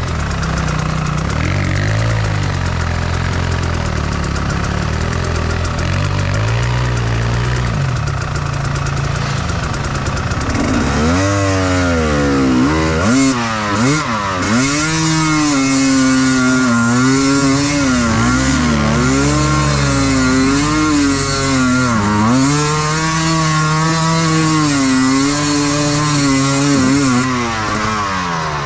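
Enduro motorcycle engine running at low revs, then from about ten seconds in revving up and down over and over as it is ridden.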